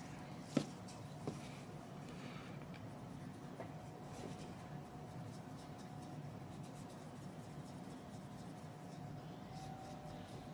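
Faint scratchy rubbing of an alcohol-dampened cotton bud scrubbing a graphics card's cooling fan, with a couple of light clicks in the first second and a half.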